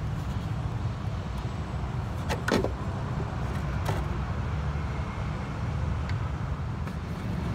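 Socket screwdriver undoing the mounting screws of a Bosch 12 V power-window motor: a few short metallic clicks and scrapes with a brief squeak, about two and a half and four seconds in, over a steady low rumble.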